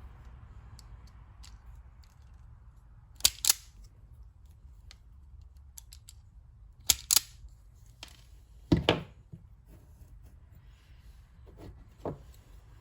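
Wire stripper snipping insulation off the ends of a wire: three pairs of sharp snips a few seconds apart, then a softer click near the end.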